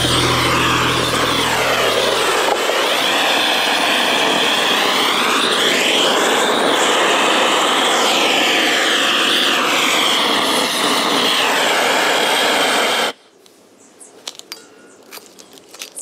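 Propane blowtorch burning with a loud, steady rushing hiss while its flame is swept around the inside of a wooden beehive box to scorch and sterilise it; the tone shifts slowly as the torch moves. About thirteen seconds in the hiss cuts off suddenly as the gas is shut off, followed by a few small clicks.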